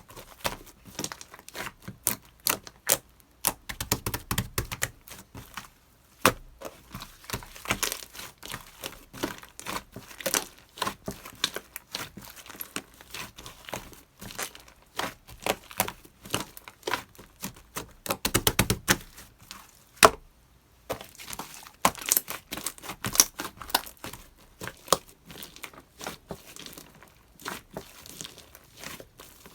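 Slime being squished and pressed by hand, giving a steady run of irregular sharp clicks and pops.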